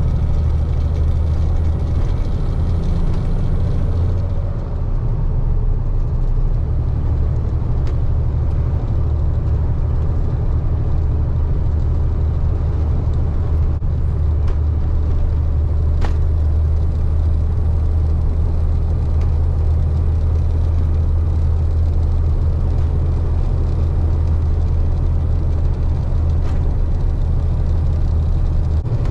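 KamAZ 4308 truck's diesel engine running steadily under way, a loud low drone with road noise above it.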